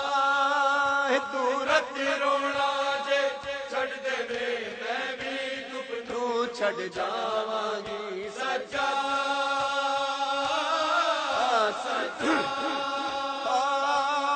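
A man chanting a noha, a Shia lament, in long held notes that waver and glide between pitches: the drawn-out refrain of the recitation.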